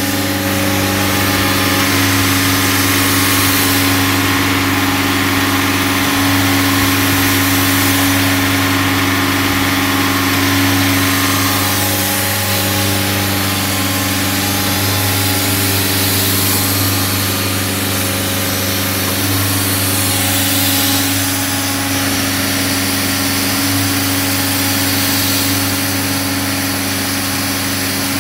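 Self-generating nitrogen servicing cart running steadily as it warms up after start-up: a loud, even engine and compressor hum with a hiss over it. The tone shifts slightly about twelve seconds in.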